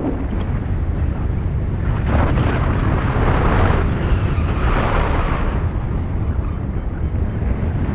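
Wind rushing over the microphone of a paraglider's camera in flight: a steady low rumble with louder surges of rushing air about two, three and five seconds in.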